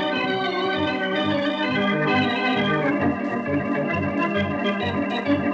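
Organ music cue from an old radio broadcast: sustained chords over a bass line that moves in short notes, with the harmony shifting about three seconds in.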